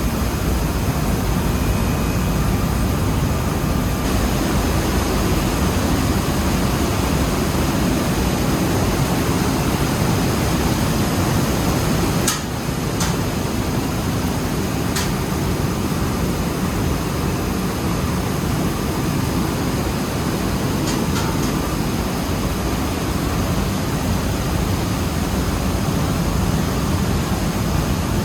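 Rice mill machinery running steadily with a loud, even roar, a few sharp clicks standing out near the middle.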